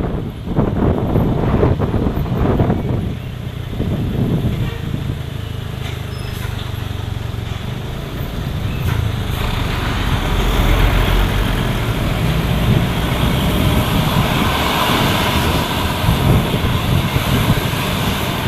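A large bus's diesel engine running close by. It is choppy and uneven for the first few seconds, then settles into a steady low rumble, with road and tyre noise building near the end as it passes.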